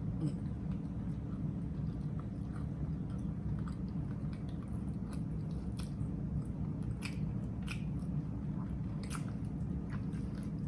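A person biting and chewing a chopped grinder sandwich close to the microphone, with scattered small crunches.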